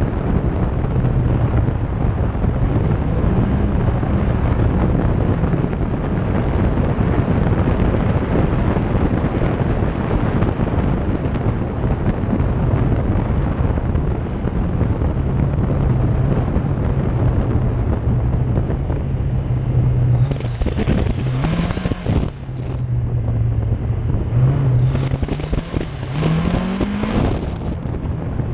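Lada VAZ 2107's four-cylinder engine running hard under load at racing pace, over a dense rush of tyre and gravel noise and wind on the microphone. About two-thirds of the way through and again near the end the revs climb sharply.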